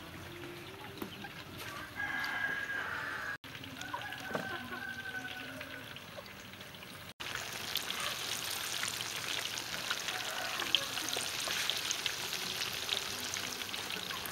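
Chicken wings deep-frying in a wok of hot oil: a steady, dense crackling sizzle that starts suddenly about halfway in. Before it, a quieter stretch with a few short pitched calls.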